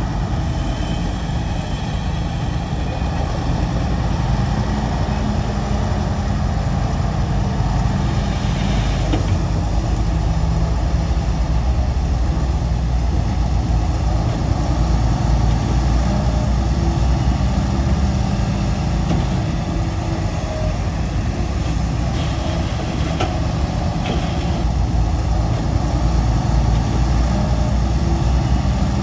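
Heavy diesel earthmoving machinery running with a steady low engine drone.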